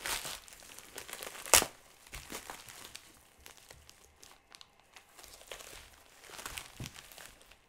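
Shipping packaging being opened by hand: wrapping crinkling and rustling, with tearing and one sharper snap about a second and a half in.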